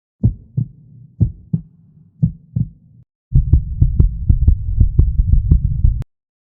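Heartbeat sound effect: three slow double thumps about a second apart, then a faster pounding heartbeat over a low hum that cuts off suddenly near the end.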